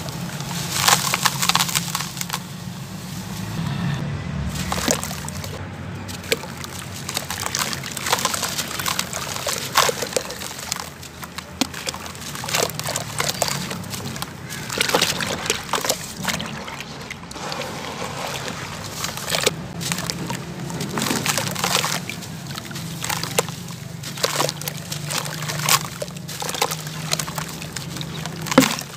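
Chunks of dry sand-cement mix crumbled by hand into foamy water: irregular gritty crunching and crackling as the chunks break, falling grit, and sloshing of the soapy water as they are dipped. A low steady hum runs underneath.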